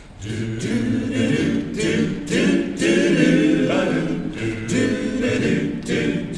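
Men's barbershop chorus singing a cappella in close harmony, entering just after the start with phrases broken by short breaths.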